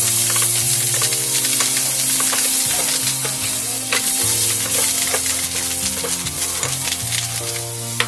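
Curry powder sizzling as it is stir-fried in a pan, with a spatula clicking and scraping against the pan several times.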